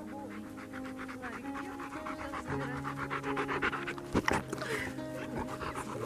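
A German shepherd-type dog panting fast and steadily close to the microphone, over soft background music with long held notes. A single sharp thump sounds about four seconds in.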